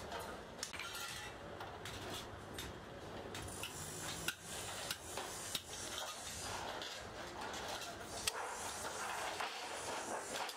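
Metalworking noise: irregular metallic clinks and knocks of metal pieces being handled and worked over a steady background hiss, the sharpest knock about eight seconds in.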